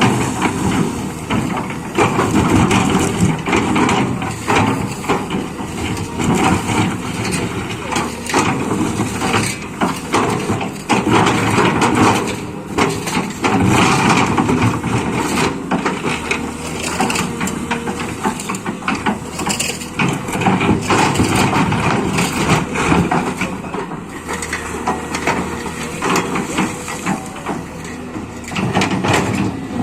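Liugong 920D excavator at work: its diesel engine runs steadily under a continuous clatter of irregular crunches and knocks.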